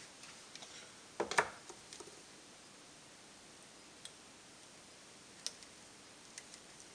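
Light clicks and taps from handling battery cells and solder wire during soldering, with a short cluster about a second in and a few single ticks later, over a faint steady hiss.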